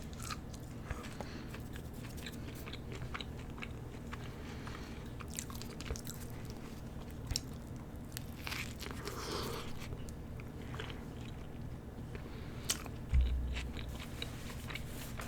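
A person chewing and biting fast food close to the microphone, with soft crunches and small wet mouth clicks scattered throughout. A short dull low thump comes about thirteen seconds in.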